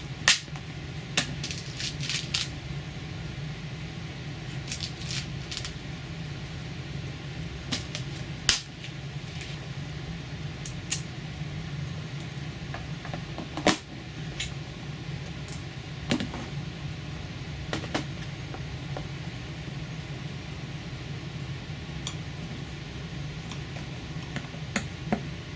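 Scattered light clicks and knocks of small screws and a hard plastic box and parts being handled as screws are driven by hand into 3D-printed stands. A steady low machine hum sits underneath.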